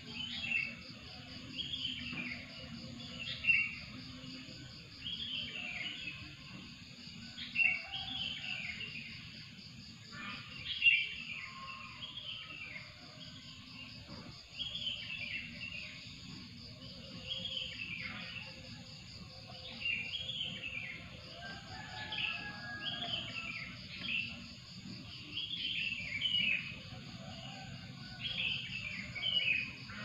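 Birds singing, a short falling call repeated every second or two, over a steady fast-pulsing trill of insects and a low background rumble.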